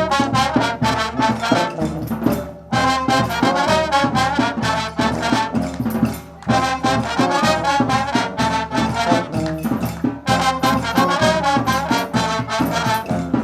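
Brass music with trumpets and trombones over a steady beat, breaking off briefly about two and a half seconds in and again about six seconds in.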